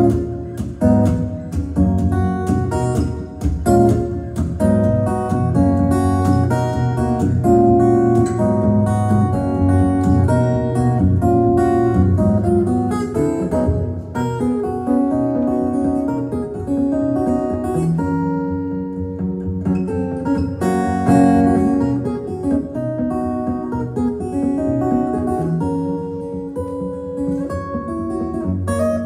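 Acoustic guitar played fingerstyle through an amplifier, a bass line moving under a melody. Sharp percussive hits run through the first half, and there is a softer passage about two-thirds of the way in.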